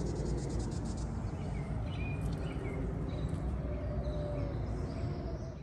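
Outdoor ambience: a steady low background noise with a few short bird chirps in the middle, fading out at the end.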